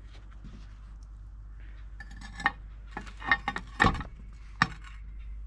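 Steel lid lifter clanking on the charcoal-covered lid of a 12-inch cast iron Dutch oven as it is hooked on and the lid is lifted: a few sharp metal clinks with a brief ring, the loudest near four seconds in.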